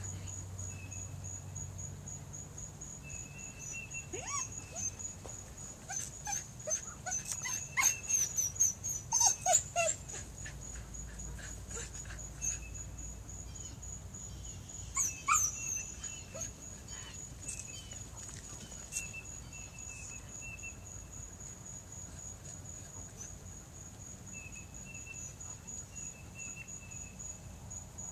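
A dog whining and yipping in short bursts, loudest between about six and ten seconds in and again around fifteen seconds. A steady, rapidly pulsing high insect trill runs underneath.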